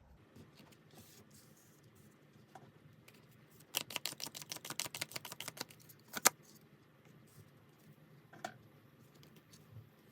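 Tarot cards being handled: a quick run of about ten clicks a second for roughly two seconds, then one sharp snap, with a few fainter taps later.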